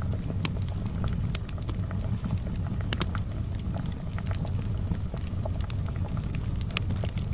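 Charcoal fire crackling with scattered sharp pops over the steady low rumble of a kettle at the boil.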